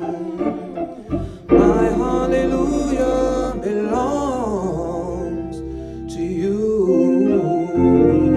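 Gospel singing: voices hold and slide through a drawn-out wordless vocal line, with sustained low instrumental notes underneath.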